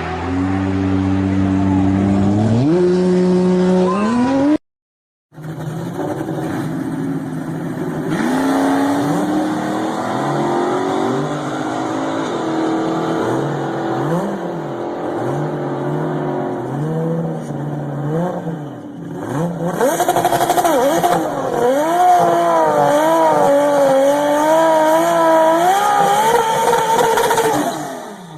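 Toyota Supra engine running and being revved. In the first clip, revs rise sharply at about three seconds before an abrupt cut. After the cut, a second clip has the engine revved up and down again and again, with a wavering higher note near the end.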